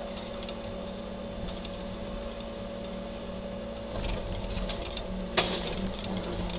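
Truck-mounted scrap crane's engine and hydraulics running with a steady hum, heard from inside the crane cab. The hum works harder about four seconds in as the grapple closes on a pressed car, and there is one sharp clank about a second later.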